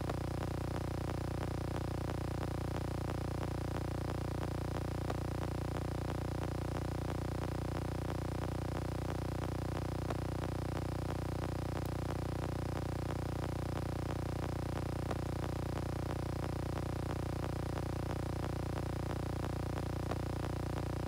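A steady hum made of several held low tones, unchanging throughout, with faint quick ticks running through it.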